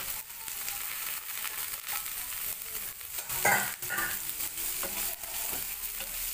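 Sliced garlic, onion, green chillies and carrot strips sizzling in hot oil in a non-stick pan, stirred and scraped with a wooden spatula. A brief louder burst comes about halfway through.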